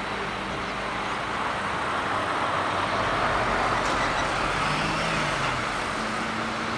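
Boeing 787 Dreamliner's General Electric GEnx turbofan engines spooling up for takeoff: a jet rush that grows louder over the first few seconds and then holds at takeoff power.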